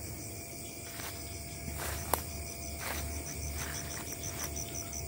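Night insects chirping in a rapid high pulsing rhythm over a low rumble, with a few rustling footsteps through undergrowth and a sharp snap about two seconds in.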